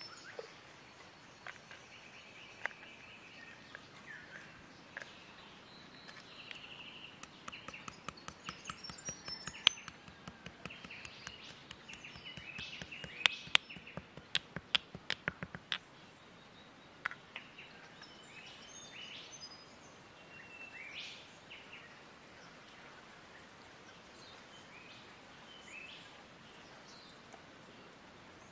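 Pestle pounding in a mortar: a run of sharp, uneven knocks from about six seconds in until about sixteen seconds, several a second at their thickest. Birds chirp in the background throughout.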